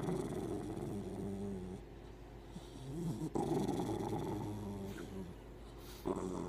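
A dog's low, drawn-out growling grumbles, several long ones in a row with a short one between, the sound of a grumpy, moody dog being cuddled.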